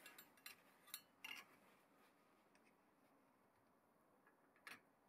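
Near silence, broken by a few faint clicks and light scrapes of a steel engineer's square being set against an aluminium workpiece on the mill table, mostly in the first second and a half, with one more near the end.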